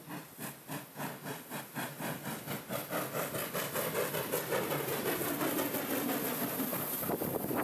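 SJ class E2 steam locomotive, built 1907, running past under steam with an even beat of exhaust chuffs, a few a second. It grows louder as it comes close, and a tone in the sound slides down in pitch as it passes.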